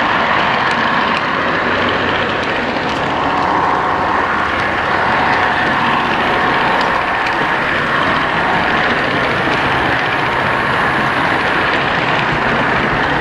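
O-gauge model train rolling along ScaleTrax track at a steady speed: a steady whir and rumble of wheels and motor, with a few faint clicks.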